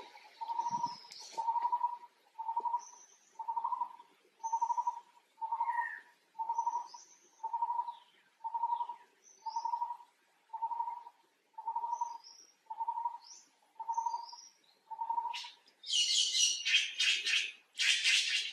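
A bird repeats a single clear note about once a second, with faint higher chirps from other birds. In the last few seconds, long-tailed macaques scuffling give loud, harsh screeches.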